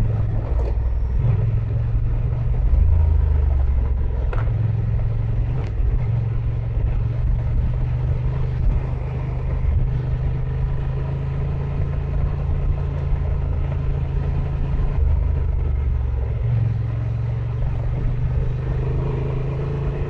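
Honda Transalp 750's parallel-twin engine running steadily while being ridden, its note stepping up and down a few times as the throttle changes.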